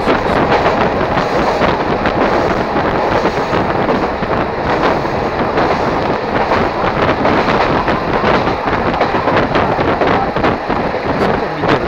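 Diesel railcar running along the track, heard from beside its open window: a loud, steady rush of wind and wheel-on-rail noise.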